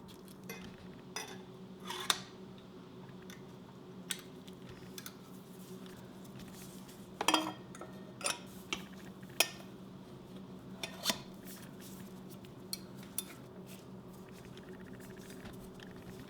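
Scattered metallic clinks and taps of hand tools and acorn nuts being worked onto motorcycle exhaust header studs, over a steady low hum.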